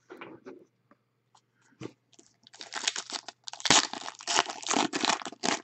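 Foil wrapper of a soccer trading-card pack being torn open and crinkled by hand, a dense crackling that starts about two and a half seconds in. A few soft handling sounds of cards come before it.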